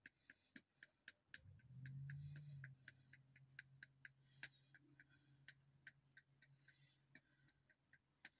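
Quiet, steady ticking of a clock, about four ticks a second, with a faint low hum starting about one and a half seconds in.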